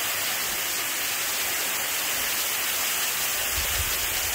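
Waterfall splashing close by: a steady, unbroken rush of falling water.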